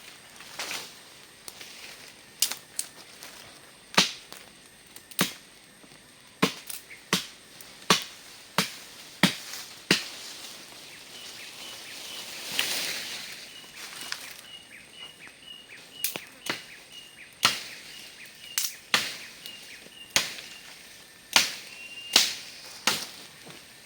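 A blade chopping wood: about twenty sharp, irregular chops, with a pause of several seconds in the middle. A faint, high, repeated chirp runs under the second half.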